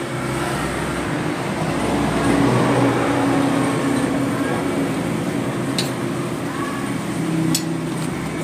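Road traffic: a motor vehicle's engine running past, louder around two to three seconds in, with two light clicks near the end.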